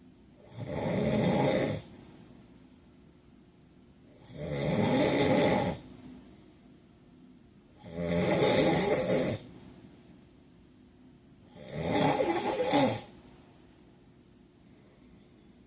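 A man snoring in his sleep: four loud snores, one every three to four seconds, each lasting a little over a second, with quiet breathing between them.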